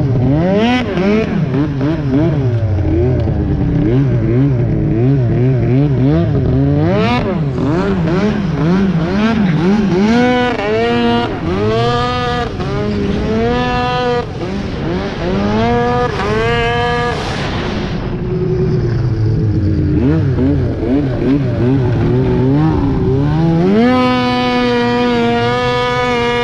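Arctic Cat CFR 1000R snowmobile's two-stroke engine through a loud aftermarket GGB exhaust can, revving up and down over and over. There is a run of quick blips in the middle, then it is held steady at high revs for a couple of seconds near the end.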